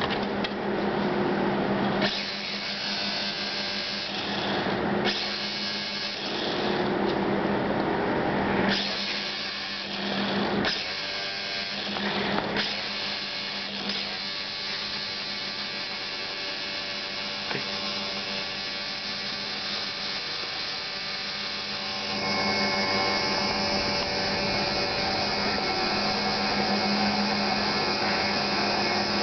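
Small electric motor and propeller of a Megatech Avion micro RC biplane running with a steady whine, its level stepping up and down several times.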